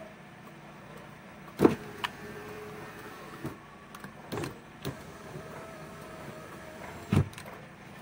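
Sharp clicks and knocks of a car's power window control switch and its small parts being handled and fitted back together while its contacts are cleaned. About six clicks sound over a steady low hum, the loudest about a second and a half in and another near the end.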